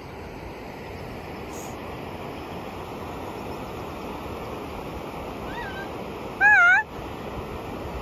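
Steady rushing noise of river water and wind, with a faint wavering call about five and a half seconds in, then one loud, wavering high-pitched call close by about half a second long.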